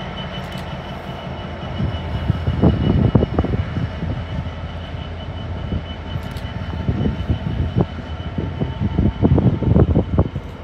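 Freightliner Class 66 diesel locomotive passing with a low drone, followed by its intermodal container wagons rumbling by. Wheels clatter loudly over rail joints in quick clusters about three seconds in and again near the end.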